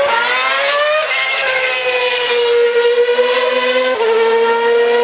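Formula One car's V8 engine running at high revs under acceleration. Its pitch climbs, drops sharply at an upshift about a second in, holds roughly level, then drops again at a second upshift near four seconds in.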